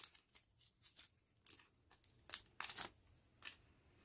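Plastic wrapping on a stack of photo cards crinkling and rustling in short, faint bursts, about seven of them, as it is pulled open and the cards are handled.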